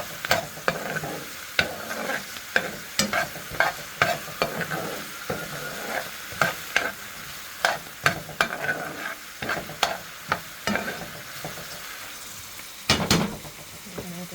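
Onions, celery, chicken and garlic sizzling as they sauté in a pan, with a utensil clacking and scraping against the pan many times as the mix is stirred. A louder run of knocks comes near the end.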